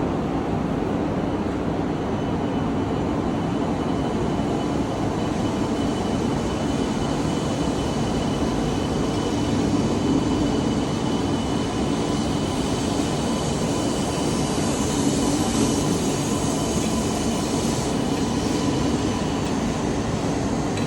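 E2 series 1000 Shinkansen train pulling out of the station: a steady running hum with a thin high tone held through most of it, the hissing upper range growing from about halfway.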